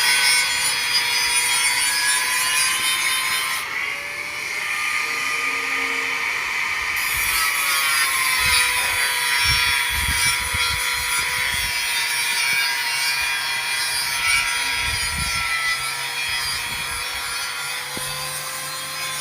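A power tool working steel: a steady rasping noise with a whine whose pitch dips briefly a few times as the tool is loaded.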